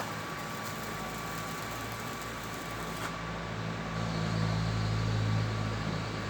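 Arc welding: a steady hiss over the low hum of the welding machine, the hum growing louder about four seconds in.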